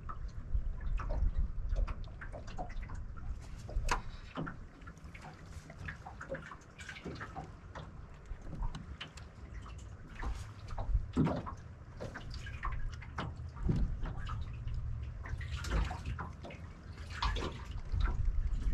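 Small waves lapping and slapping irregularly against an aluminium fishing boat's hull, over a low steady rumble.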